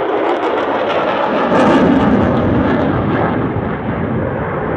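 Fighter jet flying past overhead, its engine noise swelling about a second and a half in and then easing off as it moves away.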